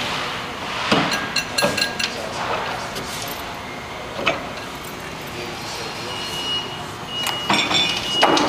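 Clanks and knocks from a PowerPal 1000 battery-powered cart tugger's hitch and the steel cart it is coupled to. From about six seconds in, a steady high beep sounds.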